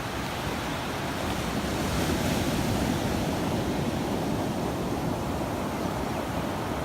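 Sea waves washing onto a sandy beach, a steady surf that swells a little about two seconds in.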